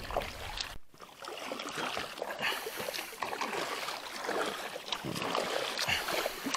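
A double-bladed kayak paddle dipping and splashing through the water in steady strokes, with drips and water lapping around a small inflatable kayak.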